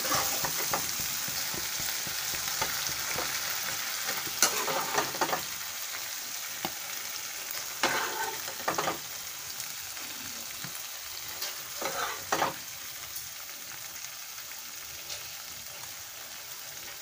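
Water lily stem curry sizzling in a steel kadai, a steady hiss that slowly fades, with a spatula scraping and knocking against the pan three times as the curry is scooped out.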